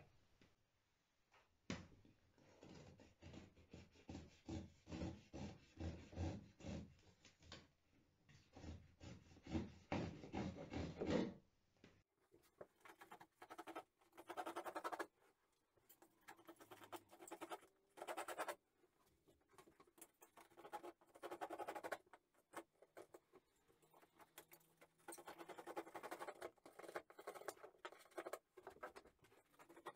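Utility knife slicing off the edges of fiberglass cloth set in partly cured, still rubbery epoxy: a run of short scratching cuts about two a second, then after a brief pause more irregular cutting strokes.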